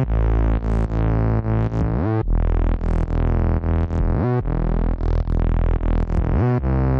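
Background music: synthesizer with a steady beat and a rising pitch sweep about every two seconds.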